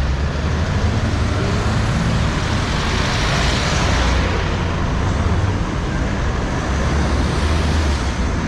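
City street traffic: a steady rumble of passing road vehicles, with one vehicle swelling louder as it passes about three to four seconds in.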